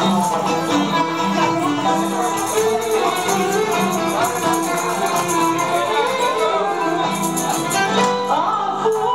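Loud dance music with a voice singing over a steady beat.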